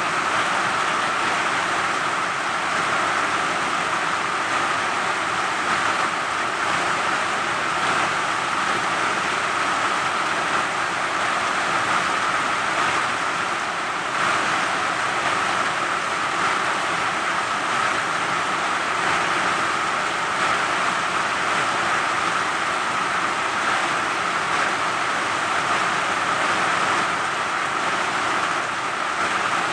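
Steady rain falling, a constant even hiss with no breaks or thunder.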